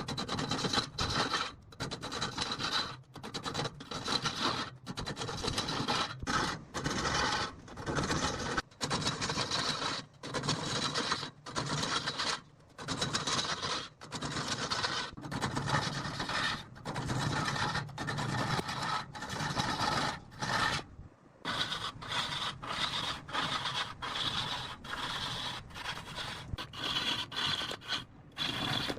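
A turning tool cutting a rosewood log as it spins on a wood lathe: a coarse scraping in repeated strokes of a second or two each, with brief breaks between them and a slightly longer pause about two-thirds of the way through.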